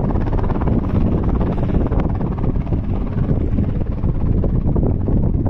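Helicopter coming in to land close by, its rotor wash buffeting the microphone with wind noise: a loud, steady mix of rotor chop and gusting wind.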